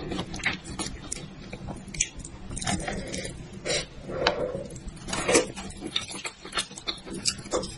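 Close-miked wet chewing and squelching of spiced, cooked head meat and skin, mixed with sticky tearing as pieces are pulled off the skull by hand. There is an irregular run of short smacks and clicks.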